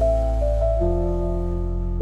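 Slow, calm instrumental meditation music: soft keyboard notes held over a deep sustained bass, the chord shifting about a second in.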